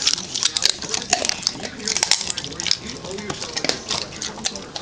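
A starving dog eating hungrily at close range: quick, irregular clicks and crunches of chewing and mouth noises.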